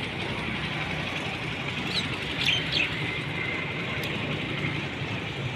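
Steady outdoor background noise with a few short bird chirps about two to three seconds in, and one faint snip of hand pruning shears cutting a rose stem about four seconds in.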